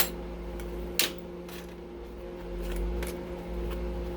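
Sharp clicks and taps of small metal circuit-breaker parts being handled, two louder ones a second apart at the start and lighter ones after, over a steady hum.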